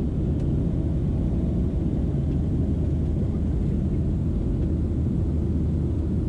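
Cabin noise of a Boeing 737 airliner on its takeoff roll: jet engines at takeoff power and the runway rumble making a steady, even low roar.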